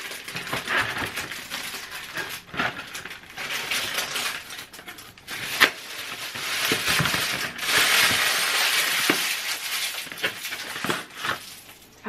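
A cardboard box of frozen breaded sticks and its plastic inner wrap being opened and torn, crinkling and crackling with sharp clicks. The crinkling is busiest and loudest over the middle of the stretch.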